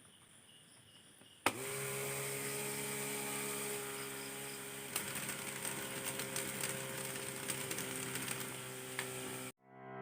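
Small DC motor fan switched on about a second and a half in, running with a steady whirring hum, joined by light ticking and rattling from about halfway; it cuts off abruptly near the end.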